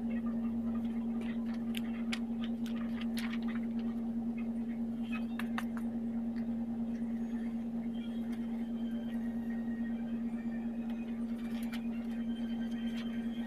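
A steady low hum, with scattered soft clicks and rustles of paper from a notebook being handled and its pages turned, mostly in the first six seconds.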